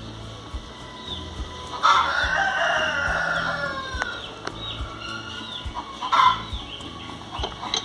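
A rooster crowing: one long call starting about two seconds in and lasting about two seconds, then a shorter, sharper fowl call near the end.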